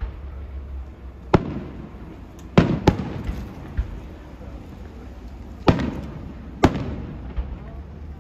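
Aerial firework shells bursting: five sharp bangs, one about a second and a half in, a close pair near three seconds, and two more between five and a half and seven seconds, each trailing off in a rolling echo, with a few smaller pops between.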